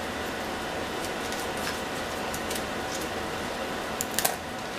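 Plastic packaging of raw chicken being opened: sparse faint crinkles and clicks, with a short cluster of them about four seconds in, over a steady hiss.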